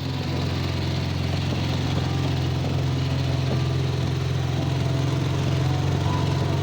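Ural motorcycle's flat-twin engine running steadily at a constant speed, with a low, even pulsing exhaust note.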